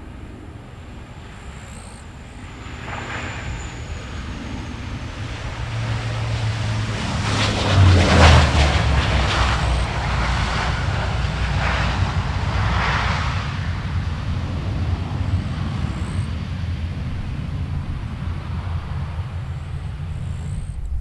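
Engines of a small regional airliner passing close by on takeoff or landing. A thin high whine fades early on, then the engine noise builds to its loudest about eight seconds in and eases off slowly.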